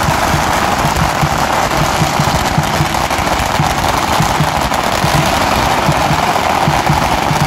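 A string of firecrackers going off in a continuous, dense crackle of pops that does not let up.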